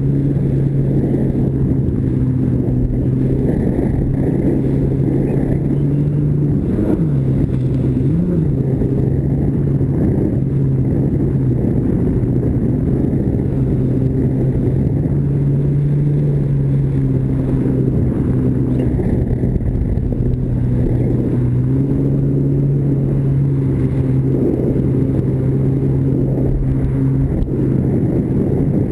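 Vintage stand-up jet ski's two-stroke engine running steadily at speed. Its pitch briefly dips and recovers twice, about seven and eight seconds in, over a constant rush of water and wind.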